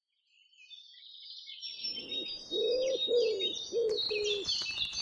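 A dawn-chorus-like mix of small songbirds chirping, fading in from silence, with a dove cooing four low notes from about two and a half seconds in. A run of faint clicks comes near the end.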